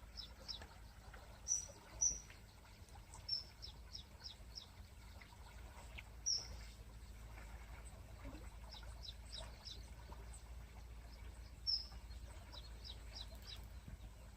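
Small birds chirping: sharp high single notes and quick runs of short notes, coming every few seconds over a steady low background rumble.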